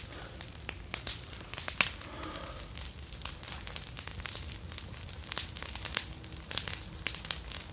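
Garden bonfire burning, crackling and popping with irregular sharp snaps.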